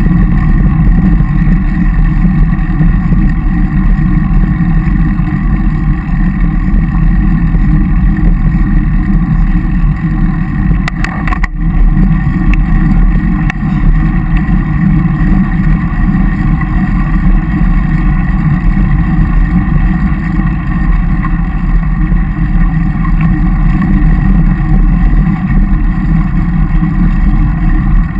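Loud, steady low rumble of wind and road vibration on a camera carried on a moving road bicycle, with a brief clatter about eleven seconds in.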